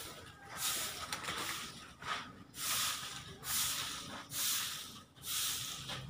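Rhythmic swishing noise, about one swish a second, each lasting about half a second.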